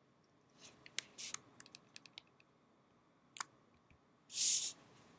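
Scattered sharp clicks from a computer keyboard and mouse, several in quick succession and then one more. Near the end comes a brief rustling hiss, louder than the clicks.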